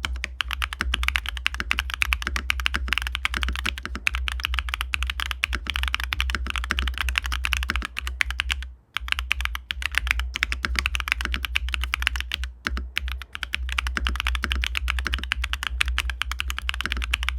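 Fast, continuous typing on a custom mechanical keyboard: neo75 Cu with Keybay W1 long-pole switches, a carbon fiber plate, gasket mounting and DCS Walkman keycaps. The sound is loud and clacky with a stiff feel, and there are two brief pauses in the typing.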